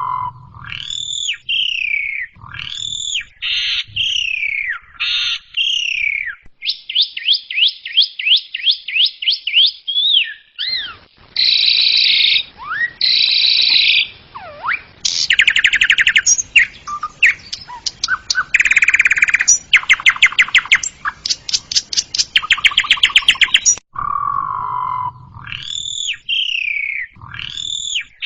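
Javan pied starling (jalak suren) singing a varied song: loud falling whistles, a quick run of rising notes at about four a second, harsh buzzy phrases, then long rapid chattering rattles before the whistles come back near the end.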